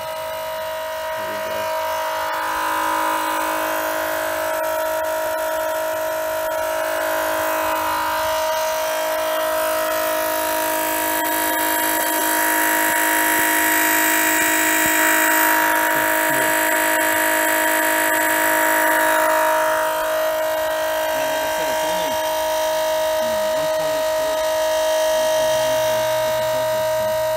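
Milwaukee M18 cordless transfer pump running steadily with an even, high-pitched motor hum as it draws used engine oil out of a generator into a jug. It is louder in the middle stretch.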